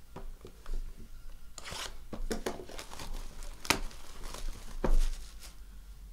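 Cellophane shrink wrap being torn and crinkled off a trading-card hobby box. The crackling builds about a second and a half in, with a couple of sharp snaps, the loudest near the end.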